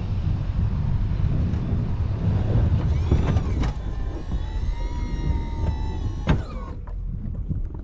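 Plow vehicle's engine running under load with a steady low rumble while the rear plow pushes snow into a pile. A few seconds in, a whining tone rises, holds for about two seconds, then rises again and fades.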